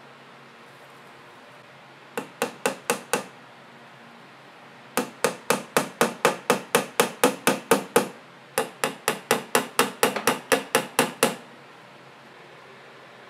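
Small hammer driving nails through thin wooden craft-stick slats into a wooden board, in quick evenly spaced blows about five a second. A short run of about five strikes comes first, then two longer runs of a dozen or more each.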